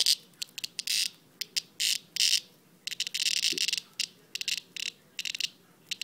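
A Tibicen cicada held in the fingers giving harsh, high buzzing squawks in short, irregular bursts, the longest about three seconds in: the protest buzz a cicada makes when grabbed.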